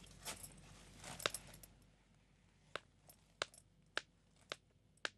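Faint, sharp clicks or taps, irregularly spaced and coming roughly every half second in the second half, over a low background hiss.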